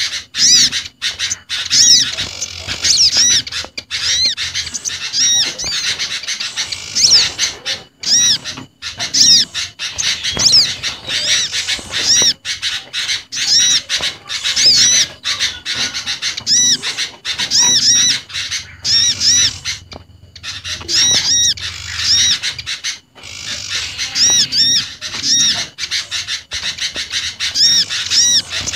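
Bird-lure recording of small garden birds calling together, a mix that includes an olive-backed sunbird, a prinia and a noisy sooty-headed bulbul: rapid, repeated high chirps, several a second, with a brief break about two-thirds of the way through.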